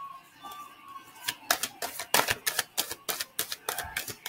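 Tarot cards being shuffled by hand: a rapid run of sharp clicks, about five a second, starting about a second in.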